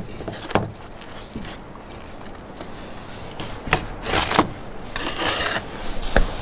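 A large knife and a fork or spoon working through a grilled tomahawk steak on a cutting board. There are a few sharp clicks of metal on the board, and short scraping strokes come about four and five seconds in.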